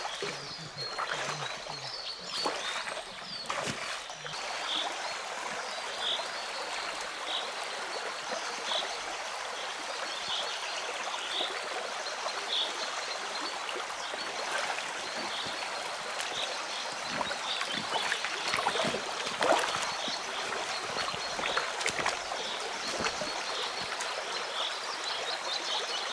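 Small taiga river flowing, a steady even rush of water, with a few sharp knocks a few seconds in and again near the end of the second third.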